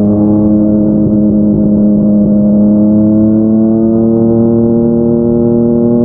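Yamaha MT-09's inline three-cylinder engine through a Yoshimura R55 slip-on exhaust, pulling steadily in one gear, its pitch rising slowly as the bike gains speed.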